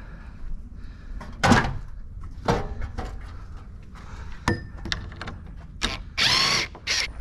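Ryobi cordless impact driver backing out screws from the metal brackets that hold galvanized poles to a wooden fence. A few sharp knocks and clanks come first, then the driver runs in a short half-second burst near the end, with a brief blip just after.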